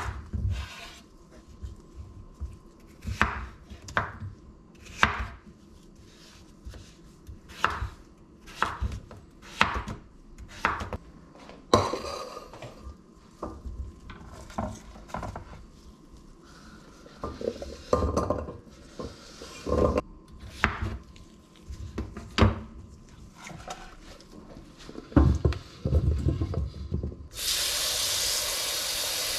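Chef's knife cutting peeled potato on a wooden cutting board, a run of sharp irregular knocks, followed by clatter and thumps of a stainless steel pot being handled. Near the end, tap water runs steadily into the steel pot over the potato chunks.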